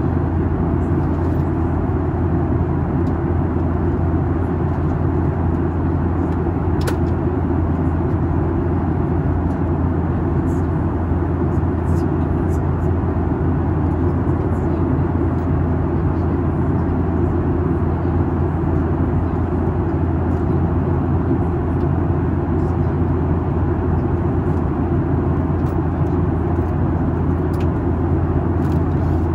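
Steady cabin noise of a Boeing 737-8 climbing, heard from a window seat: a constant low drone and rush of airflow and engine noise, with a few faint ticks scattered through it.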